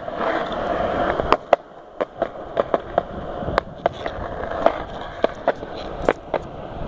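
Skateboard wheels rolling over concrete sidewalk, a steady rumble broken by a dozen or so sharp clicks at uneven intervals as the wheels cross the cracks and joints between slabs.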